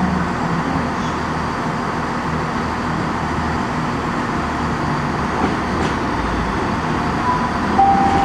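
Class 175 Coradia diesel multiple unit running slowly into the platform, its underfloor diesel engines rumbling steadily. A brief, thin, steady whine comes in near the end.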